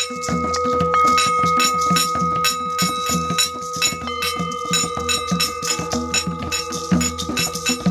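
Several singing bowls ringing in long, sustained tones, a fresh tone coming in about four seconds in, over a steady beat on a hand drum and light shaken percussion.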